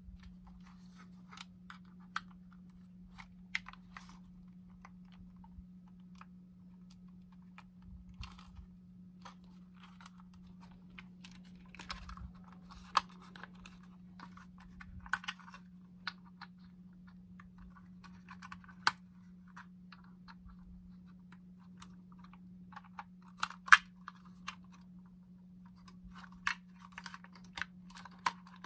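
Irregular light plastic clicks and taps from a DJI Mavic drone remote controller being handled, its parts folded and its small control sticks fitted. A few clicks are sharper than the rest. A steady low hum runs underneath.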